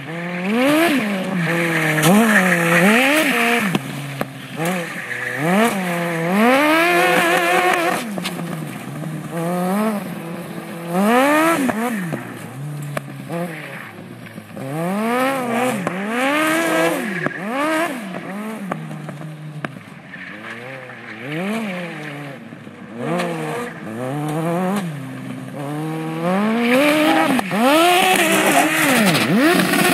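Go-kart with a 1000cc motorcycle engine revving up and dropping back over and over as it drifts and spins, with its tyres squealing.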